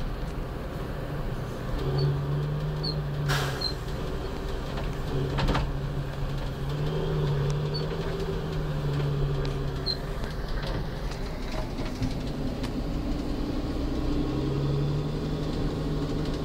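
Tugmaster terminal tractor's diesel engine running, heard from inside the cab as it drives on snow, its note rising and falling with the throttle. Two sharp knocks about three and five and a half seconds in.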